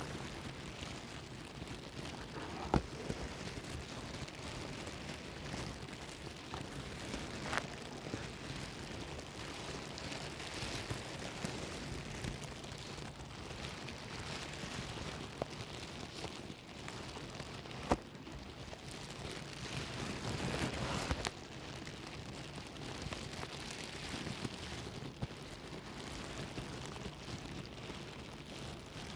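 Plastic bag rustling and crinkling continuously, with a few sharp crackles now and then; it grows louder for a couple of seconds about twenty seconds in and then stops abruptly.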